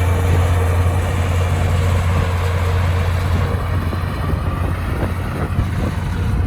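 Heavy earthmoving machine's diesel engine running steadily with a deep, even drone.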